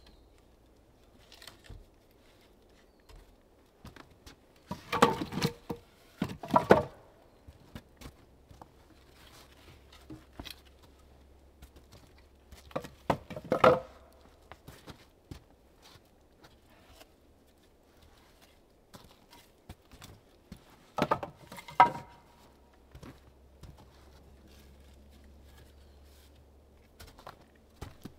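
Bursts of knocks and thuds on wood as logs or boards of a log cabin wall are worked by hand, in four groups, with light clicks and rustles of handling between.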